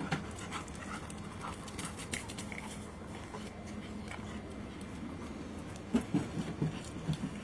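Doberman panting as it trots, then several sharp knocks about six seconds in as its paws land on the hard plastic training platforms.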